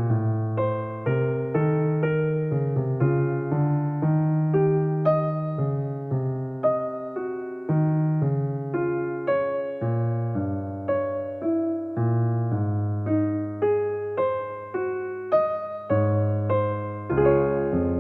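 Background music played on an electric piano: a melody of short, decaying notes over held low bass notes.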